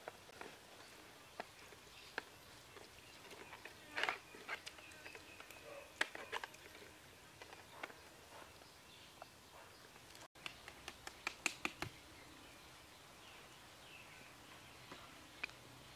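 Hands working raw pig intestine onto bamboo skewers, with scattered soft wet taps and clicks. About eleven seconds in comes a quick run of sharp clicks as a bamboo skewer is set on a bamboo rack over a small ember fire.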